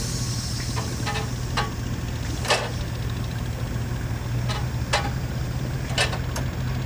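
Rumely OilPull tractor engine firing unevenly as it is started: sharp exhaust pops at irregular gaps of about a second, over a steady low engine drone.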